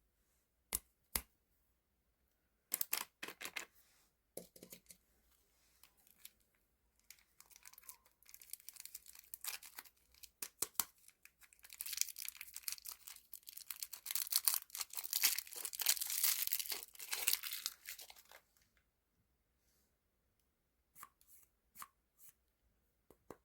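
Plastic candy wrappers being torn open and crinkled at close range: a few sharp clicks, a short burst of tearing, then a long dense stretch of crinkling in the middle, tailing off into scattered clicks near the end.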